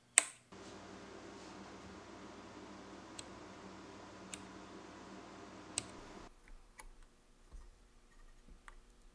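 Small brass lever switch on a vintage Justrite flashlight head being flicked: one sharp click just after the start, then three lighter clicks spread over the next few seconds, over a faint steady hum.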